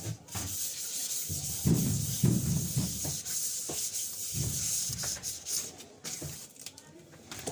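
Sandpaper rubbing over the sheet-metal body of a washing machine in irregular back-and-forth strokes, prepping its surface for a smooth white finish.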